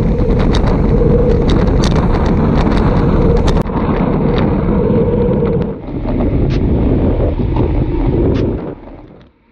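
Wind rushing over a bike-mounted camera's microphone while riding a road bike at speed, a loud, steady rumble with scattered sharp clicks. It falls away sharply shortly before the end.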